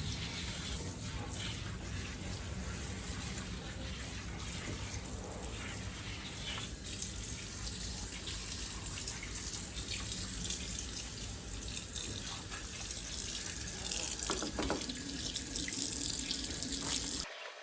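Kitchen tap running steadily into a sink while shrimp are rinsed under it, with a few light knocks from handling. The water cuts off suddenly near the end.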